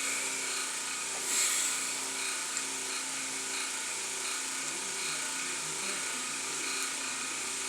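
Steady whirring hum of a small electric motor, such as a fan running to mask outside noise, with a brief swell about a second and a half in.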